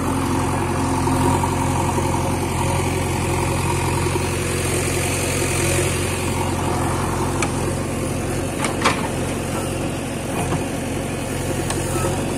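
Diesel engine of a JCB 3DX backhoe loader running steadily while it works, with a few short sharp knocks about two-thirds of the way through as a bucketload of soil is dumped into a tractor trolley.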